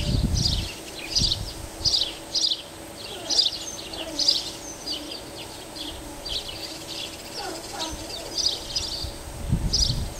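Masked shrike singing: a long run of short, scratchy high notes, about two a second, with a brief pause past the middle. A low rumble sits under the song at the start and again near the end.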